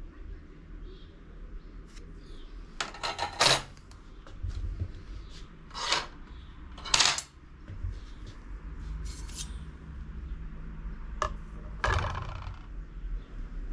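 Thin steel bicycle disc brake rotors clinking as they are handled and one is laid on a scale, as a series of short metallic clinks and rattles.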